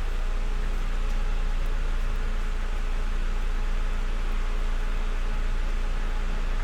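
Steady rain falling, a dense, even hiss with a strong low rumble underneath.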